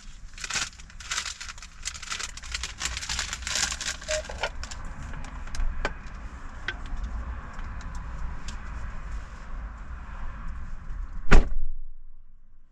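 A car's low steady rumble with a dense run of clicks and rattles over the first five seconds and scattered clicks after. About eleven seconds in there is one loud thump, and then the rumble dies away.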